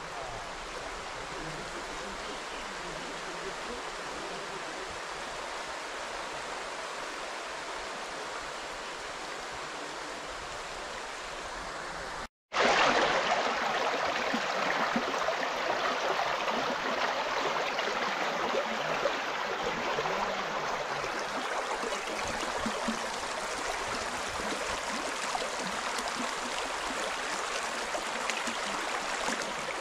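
Shallow rocky river flowing: a steady rush of water. After a cut about twelve seconds in it is louder and closer, the water running over stones in small rapids.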